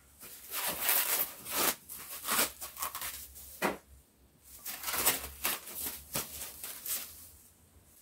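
Clear plastic protective film crinkling and rustling as it is peeled off a car window deflector, in several bursts with short pauses.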